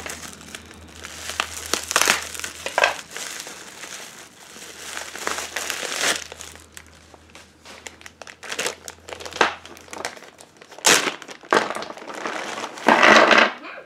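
Plastic bubble wrap crinkling and rustling in the hands as a package is unwrapped. It comes in irregular bursts, with the loudest stretch near the end.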